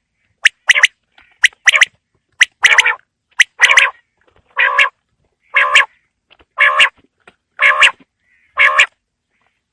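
Quail calling: short, sharp notes in quick pairs at first, then a run of longer, harsher calls about one a second, which stop just before the end.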